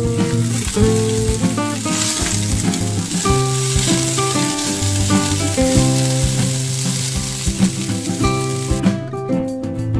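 Onion, grated carrot and bell pepper sizzling in oil in a frying pan while a spatula stirs them, over background music. The sizzling stops suddenly about a second before the end, leaving only the music.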